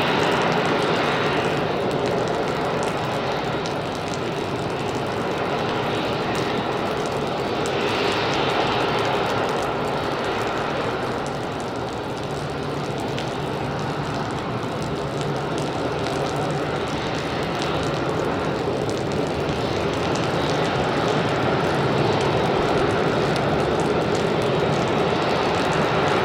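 Boeing 737-400's two CFM56-3 turbofan engines running at taxi power: a steady jet noise that swells and eases a little as the airliner taxis past.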